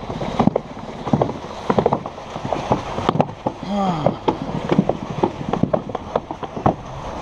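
Alpine slide sled running down its concrete track: a steady rumbling scrape with many irregular clacks and knocks as the sled rides over the track.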